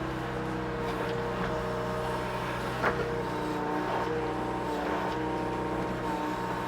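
Mini excavator's diesel engine running steadily while digging out tree stumps, with a whine that shifts up and down in pitch and a few sharp knocks, the loudest about three seconds in.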